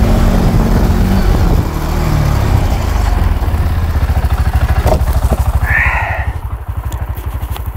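Quad ATV engine running, easing off from higher revs to a steady, rapidly pulsing idle.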